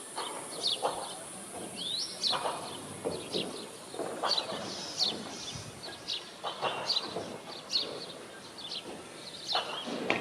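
Small songbirds chirping outdoors: many short, sharp, high notes spaced irregularly, with duller lower sounds between them.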